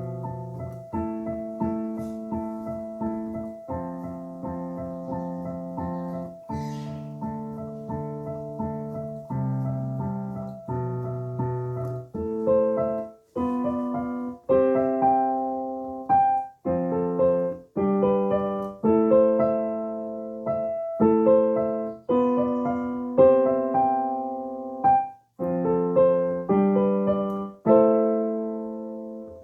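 Solo piano-sounding keyboard playing a self-composed tune: held chords at first, then from about twelve seconds in, shorter and louder chords and melody notes with brief breaks between them.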